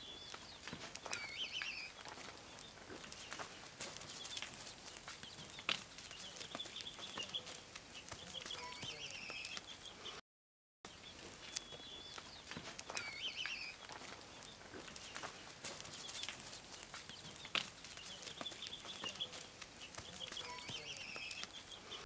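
Farmyard ambience: short bird calls and scattered light clicks and rustles over a low hiss. A stretch of about ten seconds plays twice, with a half-second gap of silence near the middle.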